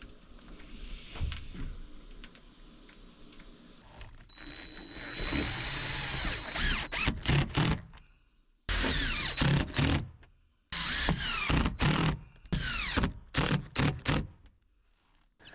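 Power drill driving screws for solar panel mounting feet into the roof, run in short bursts with the motor pitch sliding down as it slows between runs. Faint knocks come first, for about four seconds.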